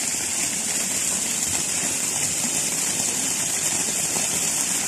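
Steady rush of running water from an infinity pool, water spilling over the edge and through the overflow gutter.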